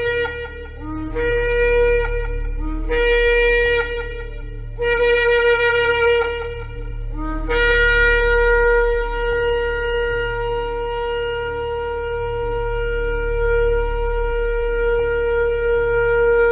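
Shofar blowing: four blasts of a second or two each, every one stepping up from a lower note to the main tone, then one long held blast from about halfway through. A low steady hum runs underneath.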